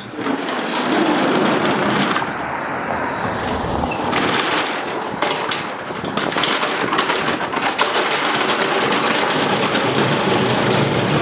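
Continuous rumbling and rattling of wheels rolling a heavy load over a hard floor, with many small knocks along the way.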